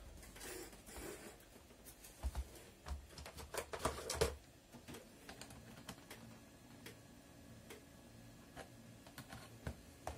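Irregular light clicks and small knocks of hard plastic and metal as hands and pliers work at a chainsaw's air-filter housing, with a burst of clicks about two to four seconds in.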